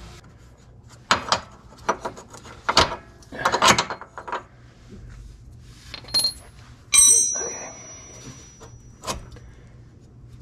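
Metal tools and parts clattering during suspension work: a run of knocks and clicks, then a bright metallic clink that rings on briefly about seven seconds in.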